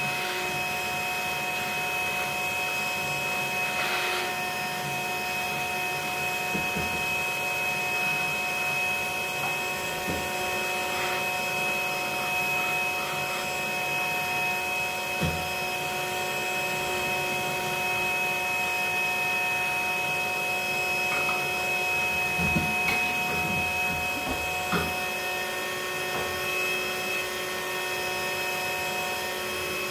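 Bee vacuum running steadily with a constant multi-tone whine, its hose sucking up bees from an opened ceiling cavity during a honey bee cutout. A few short knocks come from handling, about halfway through and twice near the end.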